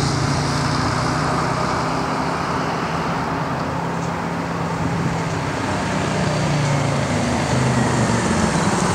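Motorcycle engines running on the road as a ride passes: a steady engine drone that eases off in the middle, then grows louder near the end as more bikes approach.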